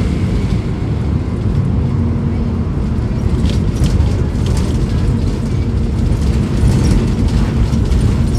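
Volvo B9SALF articulated bus's diesel engine running, a steady low rumble, with scattered clicks and rattles over it.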